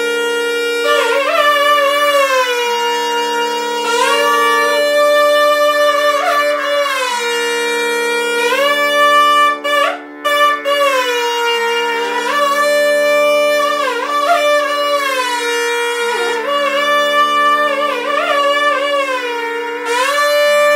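Two nadaswarams, the long South Indian double-reed pipes, playing together in Carnatic raga Kalyanavasantham. They hold long notes and slide between them with bending ornaments, over a steady lower note that pauses briefly every few seconds. There is a short break about ten seconds in.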